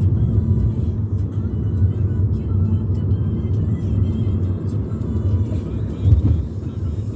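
Steady low rumble of a car driving, with music playing underneath.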